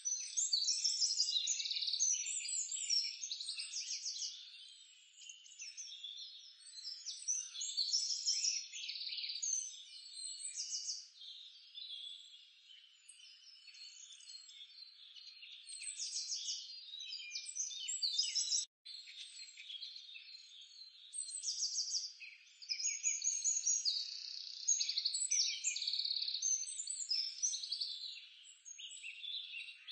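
Birds chirping and trilling, many overlapping calls and fast trills that swell and fade, with a brief dropout about two-thirds of the way through.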